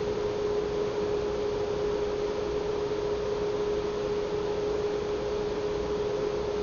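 Steady hum at a single pitch over an even background hiss, unchanging throughout: room tone.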